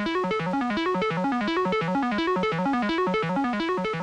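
Background music on a keyboard: a quick run of notes going up and down, repeating about twice a second.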